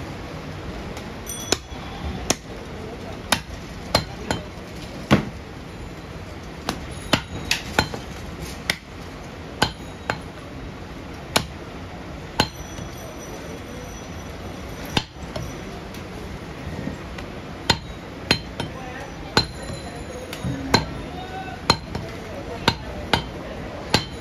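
Butcher's cleaver chopping goat meat on a wooden chopping block: sharp, irregular chops about one a second, with a pause of a few seconds midway.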